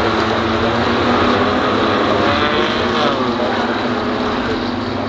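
BMW M2 Cup race car engines running hard at racing speed, with a change in revs about two to three seconds in.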